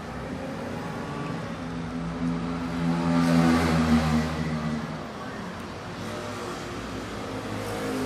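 A motor vehicle's engine going past, growing louder to a peak about three to four seconds in and then fading.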